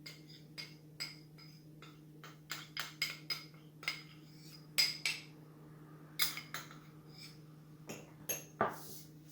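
A metal spoon clinking and tapping against a small dish, a quick irregular run of light clinks as tablespoons of flour are measured in, over a steady low hum.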